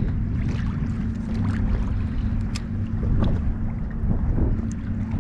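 Wind buffeting an action camera's microphone as a steady low rumble, with small waves lapping and slapping against a kayak hull in short, scattered splashes.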